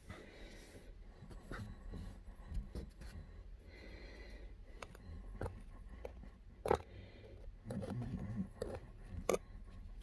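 Faint close-up rubbing and scraping with scattered small clicks, the sharpest one about two-thirds of the way through.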